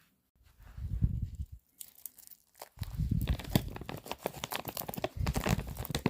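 A mystery blind-box pack's wrapping being torn open and crinkled by hand: a short rustle about half a second in, then dense crackling and tearing from about two seconds on.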